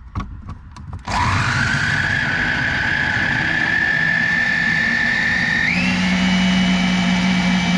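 Electric mini food chopper blending a strawberry smoothie: a few clicks, then about a second in the motor starts with a rising whine that settles into a steady high whine, stepping up higher in pitch near the end.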